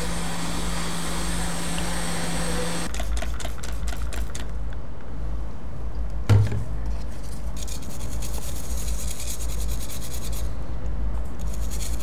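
Hot-air rework station blowing onto a MacBook logic board during chip replacement: a steady rumble and hiss that thins out and comes back several times, with a run of light clicks about three to four seconds in and one knock about six seconds in.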